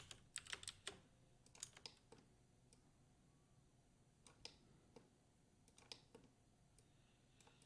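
Faint clicks of computer keyboard keys and mouse buttons, short taps coming in small scattered clusters, as shortcuts are pressed and parts are selected in 3D modelling software.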